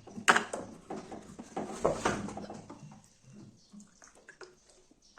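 A woman hiccuping in a persistent bout of hiccups: two loud, sharp hiccups about a second and a half apart, with fainter sounds between, then it goes quiet.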